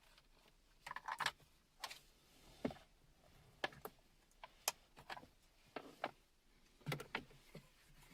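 Irregular clicks and knocks of a plastic car center console trim being handled and set down, about a dozen sharp taps with a few heavier knocks.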